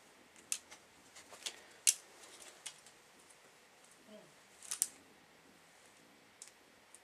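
Scattered short, crisp clicks and scrapes of hands handling a plastic LCD monitor, the sharpest about two seconds in and a quick cluster near five seconds.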